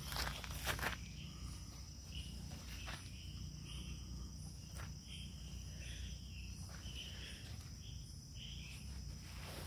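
Steady high-pitched chirring of insects, crickets or similar, with a few brief rustles or footsteps in the first second.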